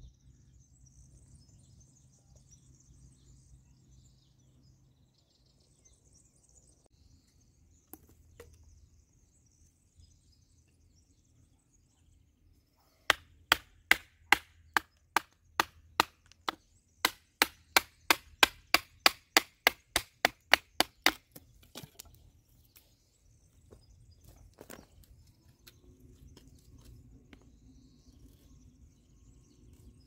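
Wood being chopped with a blade: about thirty sharp blows in quick succession, roughly three or four a second, starting a little before halfway in and stopping about eight seconds later.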